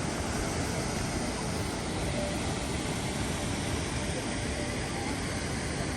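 Upper McCloud Falls: the waterfall's water pouring down in a steady, even rush of noise with no change in level.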